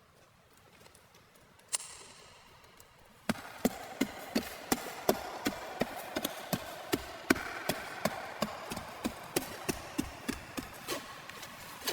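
A hand tool striking wood repeatedly, fast and sharp, about two or three blows a second. It starts a few seconds in after a single knock, over a steady background rush.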